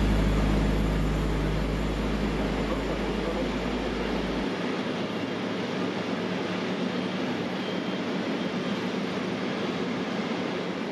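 Boeing 777-300ER's GE90 jet engines idling: a steady, even hiss. A low hum fades out over the first few seconds.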